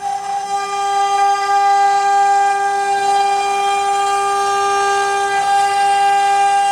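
CNC router spindle running with a steady, high-pitched whine: one held tone with many overtones, dipping briefly in loudness right at the start.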